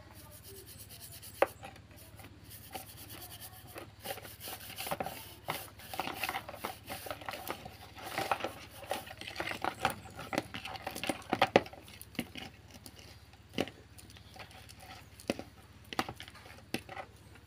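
Greasy motorcycle roller chain being scrubbed with a brush and worked by hand in a basin of cleaning fluid: irregular metallic clinks and rattles of the links with rubbing, busiest in the middle and thinning to scattered clicks near the end.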